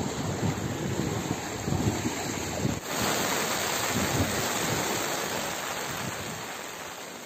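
Rushing floodwater and rain, with wind buffeting the microphone. About three seconds in, the sound switches to a steadier, brighter hiss of heavy rain and water, which fades out toward the end.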